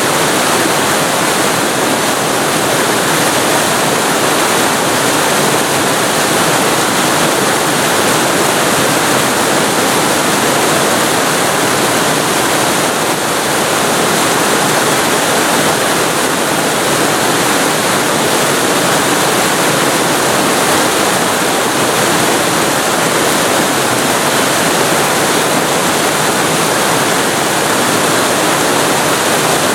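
Waterfall recorded very close to the falling water: a loud, steady, even rush of water with no breaks or changes.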